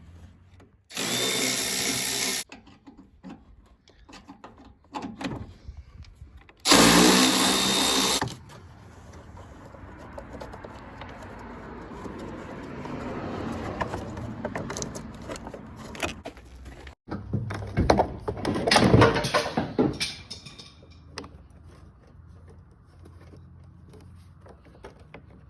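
A cordless drill runs in two steady bursts of about a second and a half, each with a motor whine. Later comes a run of clunks and rattles from tools and parts being handled.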